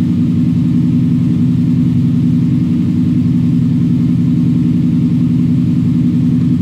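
Eight-cylinder car engine running on LPG, fast-idling steadily at around 1300 RPM during its cold-start warm-up. The mixture is a little rich.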